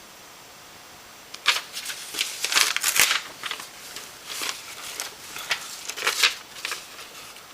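Irregular rustling and clicking over a steady hiss, starting about a second and a half in and going on until near the end.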